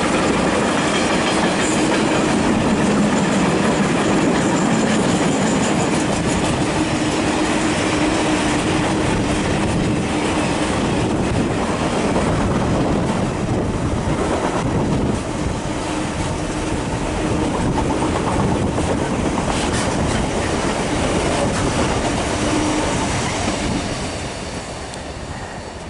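Freight train of covered car-carrying wagons, hauled by a Class 66 diesel locomotive, rolling steadily past with a continuous rumble of wheels on the rails. It grows quieter near the end as the last wagon goes by.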